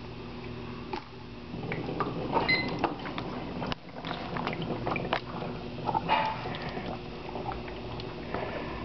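HHO gas from a 7-plate brick dry cell bubbling through water with irregular pops and gurgles, over a steady low hum.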